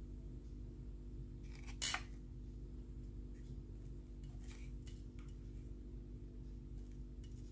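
Hands handling and pressing black cardstock pieces of a paper box together: one short sharp crackle about two seconds in, then a few faint rustles and clicks, over a steady low hum.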